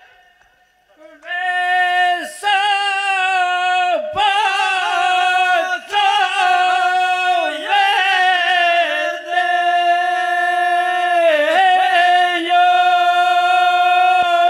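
Unaccompanied Albanian majekrahi singing: one man's high, loud voice holding long notes with wavering ornaments. The voice comes in about a second in, breaks off briefly several times, and ends on a long steady note.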